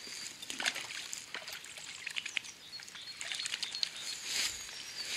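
Small splashes and trickling of river water as a brown trout is let go by hand back into the pool.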